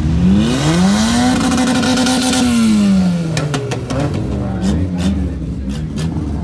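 C7 Corvette's V8 revved once: the pitch climbs for about a second, holds, then falls back about three seconds in. A scattering of sharp cracks follows.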